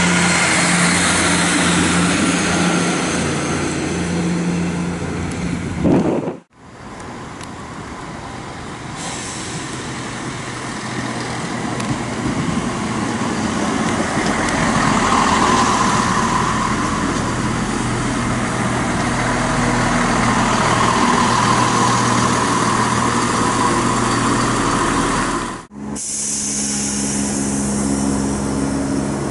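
ScotRail diesel multiple-unit trains: the underfloor diesel engines run steadily as a train moves along the platform, with rail noise rising in the middle part. The sound cuts off abruptly twice, and near the end another train's diesel engine is running at the platform.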